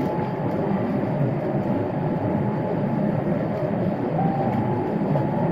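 Steady rumble of a Boeing 787-8's GEnx-1B engines and rushing air heard inside the cabin as the airliner climbs after takeoff, with a faint steady whine above it.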